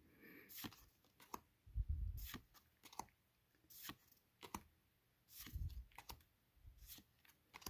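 Pokémon trading cards being flipped through one at a time in the hands: quiet, irregular light clicks and slides of card against card, with a few soft low handling thumps.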